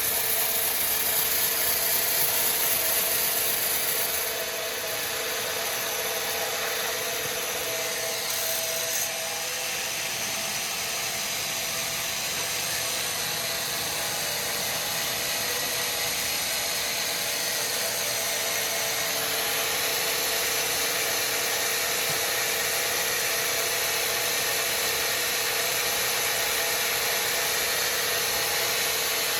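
Sawmill machinery running with a steady mechanical din and a high hiss, louder for the first four seconds, then continuing evenly.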